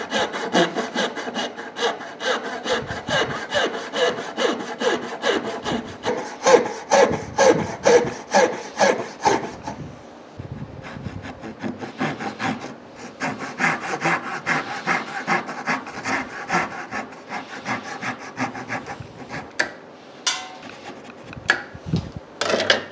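A hand dovetail saw cutting dovetails in oak, in steady back-and-forth strokes at about two a second. About ten seconds in there is a short pause, and then the strokes come faster and lighter. Two sharp knocks come near the end.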